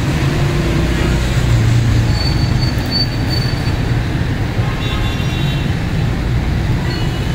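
Steady road-traffic rumble, with brief high horn toots about two seconds in and again about five seconds in.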